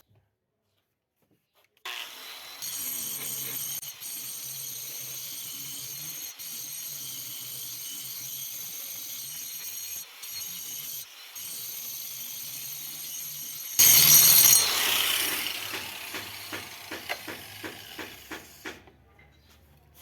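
Angle grinder running with a steady high whine, then a much louder harsh burst about 14 s in as the disc bites, fading away with scattered clicks and knocks.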